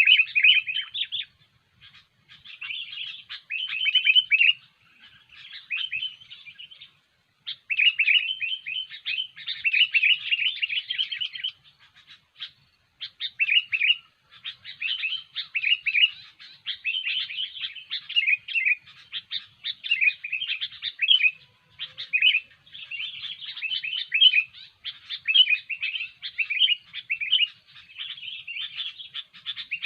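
Sooty-headed bulbul singing nonstop, in bursts of rapid chirpy phrases broken by short pauses.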